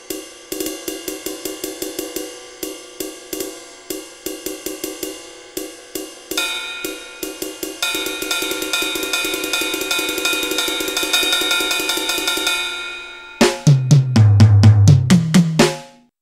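A drum-kit app on a tablet played by tapping, giving sampled drum sounds. Quick irregular hits with ringing cymbals and hi-hat come first. Long crashing cymbal wash starts about six seconds in, and a fast run of deep, heavy drum hits comes near the end.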